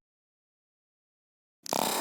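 Dead silence, then music starts abruptly near the end.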